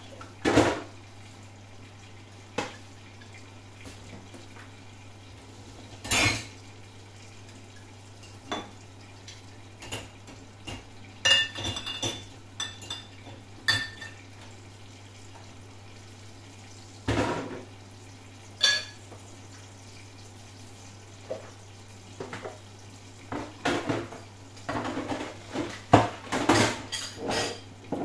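Dishes and cutlery clinking and knocking as they are handled, in scattered separate knocks, some ringing briefly, with a busier run near the end, over a low steady hum.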